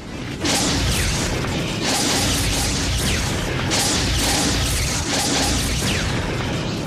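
Action-scene sound effects: about four loud crashing, whooshing bursts a second or two apart, over dramatic background music.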